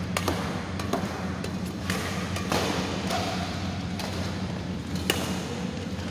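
Badminton rackets striking a shuttlecock in a doubles rally: several sharp hits, the loudest about five seconds in, over a steady low hum.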